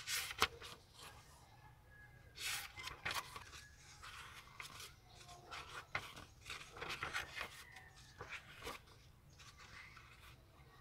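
Pages of a paperback book being turned and riffled by hand, with soft dry paper rustles and flaps in irregular spells.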